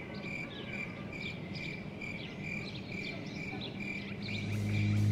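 Insects chirping in a steady rhythm, about two to three high chirps a second, over a low background hum. Music fades in near the end.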